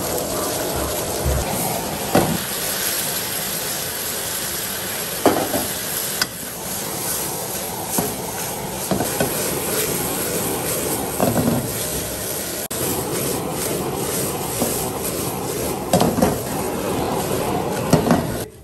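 Pufferfish pieces sizzling steadily as they are stir-fried in a nonstick wok, with a metal ladle scraping and knocking against the pan at irregular intervals.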